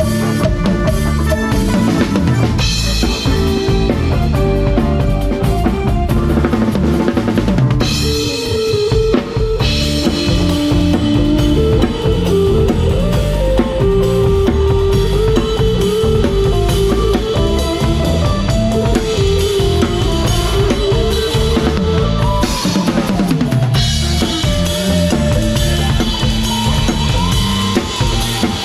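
Live band playing a cha-cha, with the drum kit up front: steady kick and snare strokes under held melody notes.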